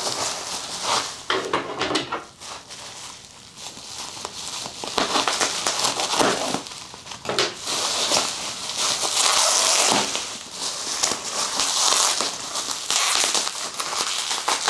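Plastic bubble wrap being unwrapped by hand, crinkling and crackling in uneven spells, loudest from about eight seconds in.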